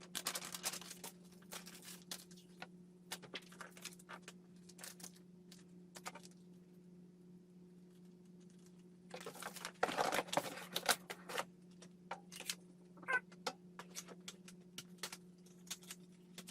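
Scattered clicks, taps and knocks of a boxed cordless pole saw and its packaging being handled during unboxing, with a denser burst of rustling and knocking about ten seconds in. A steady low electrical hum runs underneath.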